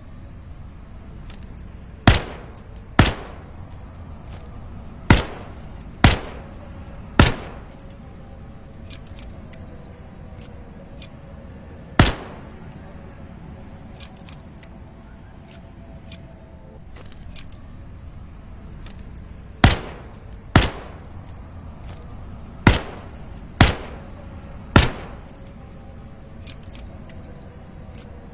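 Pistol-shaped lighter's trigger clicking: sharp snaps in groups of two or three about a second apart, eleven in all, with fainter ticks between them over a steady low background hum.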